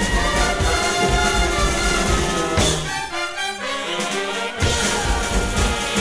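Live brass-led jazz band playing, trumpets and trombone out front over drums and bass. About three seconds in, the drums and bass drop out for under two seconds, leaving the horns alone, then the full band comes back in.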